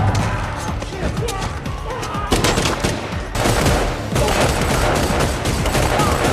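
Action-movie gunfight sound mix: rapid gunfire over a music score, the shots thickening into near-continuous volleys from about two seconds in.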